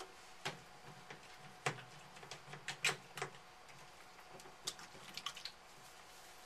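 Scattered short clicks, taps and knocks as a plastic conditioner bottle is handled and set back down, with hands working conditioner into a wet puppy's coat in a sink.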